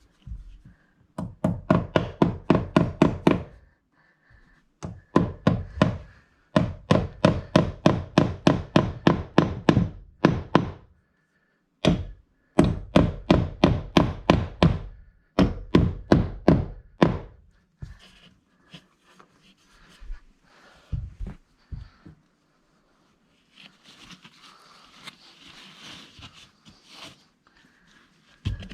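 Hammer blows on wood in fast runs of about five strikes a second, four runs in all, followed by scattered taps and faint rustling. This fits nailing up a strap to hold a new electrical cable.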